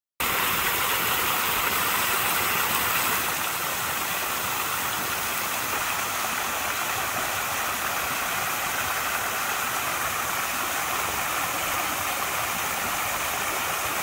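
Steady rush of falling water, an unbroken even hiss without pitch, beginning and ending abruptly.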